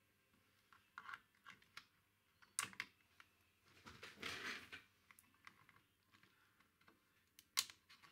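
Faint, scattered small plastic clicks and wire rustling as cable connectors are pulled off an amplifier circuit board by hand, with a longer scuffing rustle about four seconds in.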